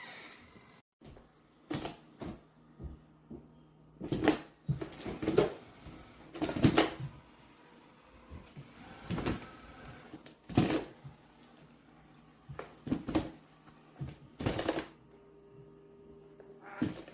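MOVA P50 Pro Ultra base station starting its mop-pad wash cycle: a faint steady hum with irregular knocks and clunks every second or two.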